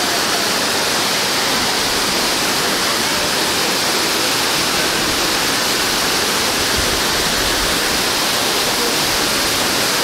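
Loud, steady rushing of a tall waterfall with a free fall of about 100 metres, heard close to its base.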